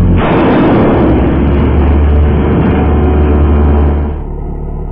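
Router motor spinning the platter at high speed inside a steel drum, running with a steady low hum. A fraction of a second in, a loud harsh rushing clatter of objects whirling against the drum joins it and lasts about four seconds, then drops away near the end.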